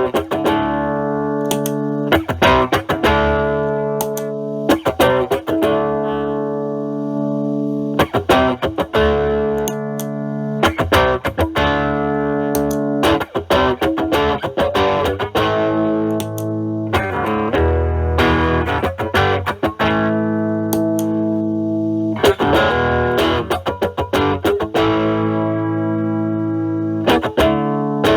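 Fender Stratocaster with single-coil alnico pickups, played through a Metal Pedals Rawhide overdrive pedal (kick toggle up) into a Marshall Valvestate amp's drive channel. The distorted electric guitar plays chords and riffs, with sharp pick attacks and chords left ringing between them.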